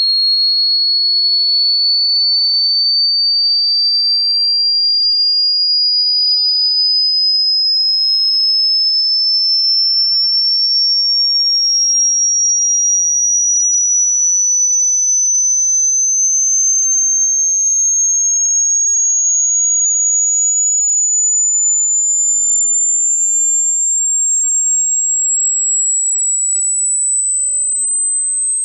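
Hearing-test sine tone: a single pure, high-pitched tone gliding slowly and evenly upward, rising about an octave at a steady loudness.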